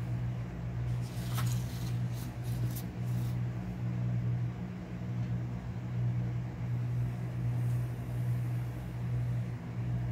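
A steady low machine hum, with a few short scratches of a coloured pencil on paper about one to three seconds in.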